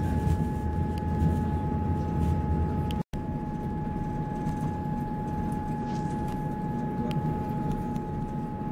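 Passenger train running steadily: a continuous low rumble with a constant high-pitched whine over it. The sound cuts out for an instant about three seconds in.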